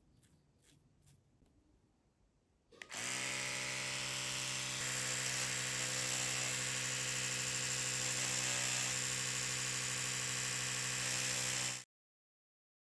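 A few faint clicks, then a loud, steady, low-pitched electric buzz starts abruptly about three seconds in, holds for about nine seconds and cuts off suddenly.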